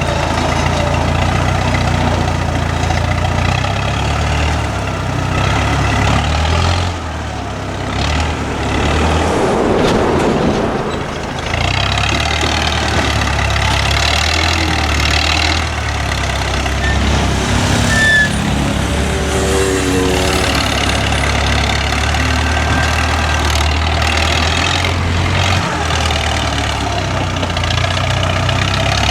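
Heavy diesel engine running with a steady low hum, rising at times to a higher whine, and a short hiss about ten seconds in.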